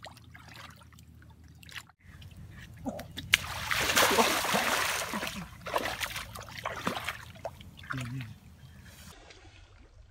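Shallow, muddy paddy water splashing and sloshing as a bamboo plunge basket is worked into the mud and a hand gropes inside it for trapped fish. The splashing is heaviest in the middle and dies down near the end.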